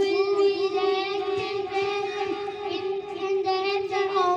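Young children singing, with long held notes.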